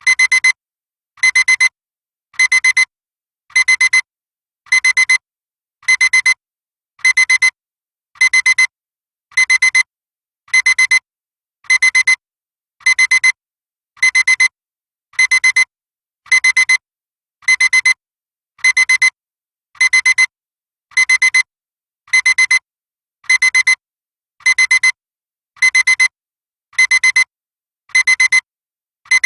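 Digital alarm clock beeping: short clusters of rapid, high-pitched beeps repeating evenly, a little slower than once a second, with no change throughout.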